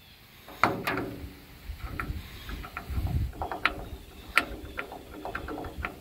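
Irregular metal clicks and clanks as a locking door handle is worked into the latch hole of an M35A2 truck's steel door, the loudest about half a second in and again past four seconds.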